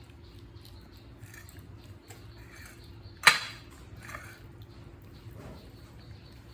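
A single sharp clatter or knock about three seconds in, much louder than anything else, ringing briefly, with a smaller knock just under a second later and faint scattered sounds around them.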